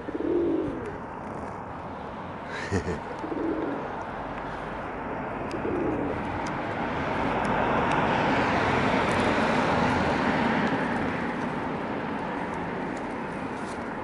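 Feral pigeons cooing: a male circling in his bow-and-coo courtship display, with several soft, low coos in the first half. A broad rushing noise swells in the middle and fades toward the end.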